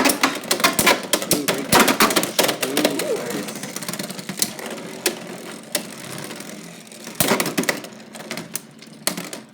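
Two Beyblade X spinning tops, Dran Sword and Hells Scythe, clashing and skidding in a plastic stadium. A rapid run of sharp clicks and knocks thins out and grows quieter as the tops lose spin, with a few louder hits later on.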